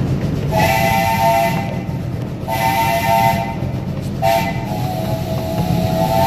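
Live steam locomotive's chime whistle sounding a chord in two long blasts, a short one and a long one, the grade-crossing signal, over the steady running rumble of the train.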